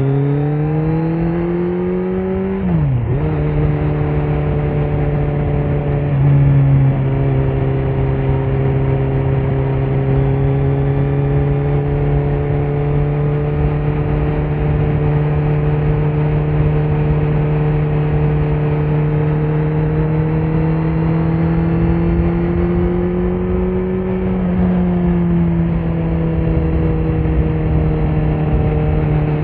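2018 Kawasaki Z900's inline-four running through a Leo Vince muffler with no dB killer: engine revs climb, drop with an upshift about three seconds in, then hold a nearly steady cruising note that creeps up slowly and eases off slightly near the end.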